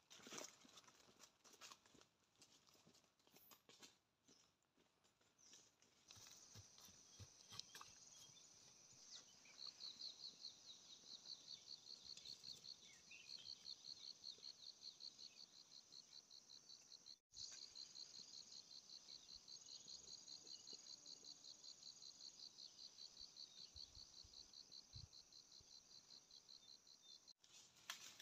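Insects chirping in a fast, even rhythm of about three or four pulses a second over a steady high-pitched buzz. In the first few seconds there is only faint rustling of dry leaf litter underfoot.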